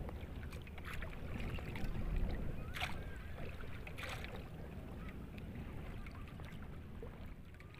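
Wind rumbling on the microphone and water lapping around a small pedal-powered water bike on open sea, with two short sharp knocks about three and four seconds in.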